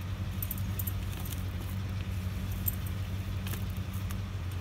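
Gloved hand scooping loose potting soil and putting it around a plant in a pot, a few short soft rustles and crunches. A steady low hum runs underneath throughout.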